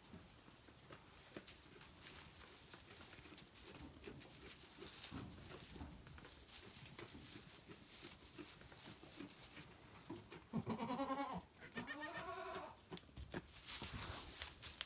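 A goat bleats twice in quick succession about ten seconds in, each call quavering. Before it there is soft rustling with small scattered clicks.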